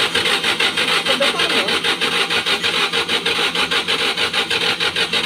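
Volkswagen Beetle engine being cranked on the starter without firing: a rapid, even grinding churn at about eight to ten pulses a second that starts and stops abruptly. It is a sign the engine is turning over but not catching.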